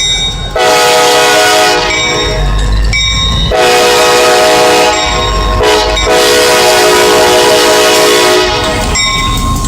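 Nathan Airchime K5LA five-chime locomotive air horn sounding three long blasts of a multi-note chord, the last the longest, over the low rumble of the passing train.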